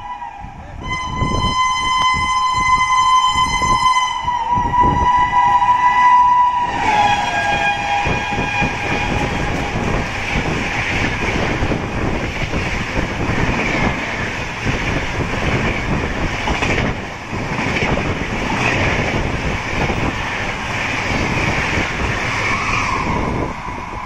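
Locomotive horn blowing a long, shrill blast as the Poorva Express approaches at speed, its pitch dropping about six and a half seconds in as the locomotive passes. Then the coaches rush through with a steady rumble and a clatter of wheels over the rail joints, fading near the end.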